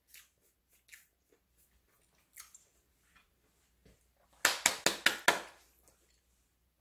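Crumbly streusel topping of a freshly baked soboro bun crunching: a few faint crackles, then a quick run of about five sharp crunches around four and a half seconds in.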